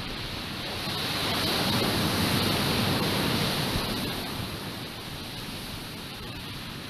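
Ocean surf breaking over molten lava at a lava ocean entry: a steady rush of water that swells about a second in and eases off again after about four seconds.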